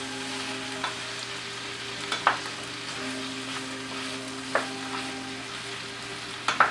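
Diced potatoes, carrots, onion and celery sizzling in butter and oil in a large stainless steel sauté pan while a wooden spoon stirs them. The spoon knocks sharply against the pan four times.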